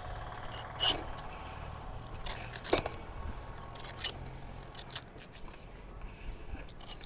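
A knife slicing and snapping through the tough, fibrous leaf sheaths at the crown of a palm, with strips pulled away between cuts: a handful of short, crisp cutting sounds.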